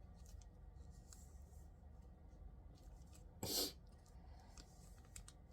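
A single short burst of hiss about three and a half seconds in, over faint scattered ticks.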